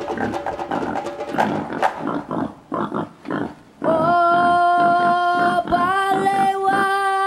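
A group of children's voices chanting in time with rhythmic drum beats; about four seconds in they hold a long, loud call on one note, break briefly, and hold a second, slightly higher call while the beats go on underneath.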